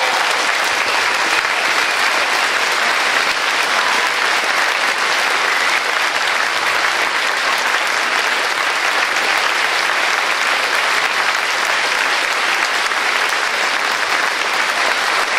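Audience applauding steadily: dense, even clapping from a full hall after a brass band performance.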